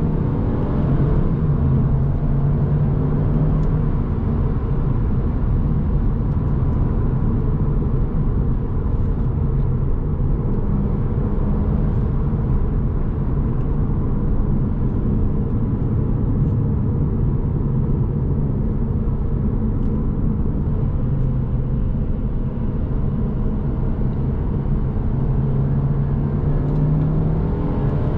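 Mercedes-Benz C200 Coupe's turbocharged four-cylinder engine and road noise at a steady cruise, heard from inside the cabin. The engine note climbs in pitch at the very end.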